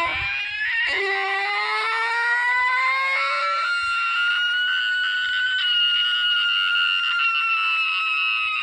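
A cartoon character's long crying wail. It breaks off and starts again about a second in, rises slowly in pitch, then is held high to the end.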